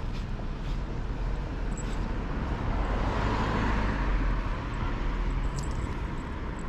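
Road traffic outdoors: a steady low rumble with a vehicle passing by, its noise swelling to a peak about three to four seconds in and then fading.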